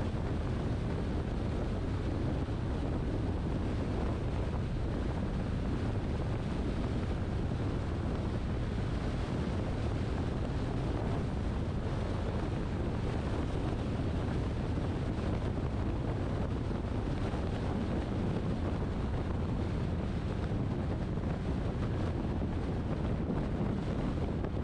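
Steady rumble of a car driving at speed: road and wind noise, heaviest in the low end, with wind on the microphone.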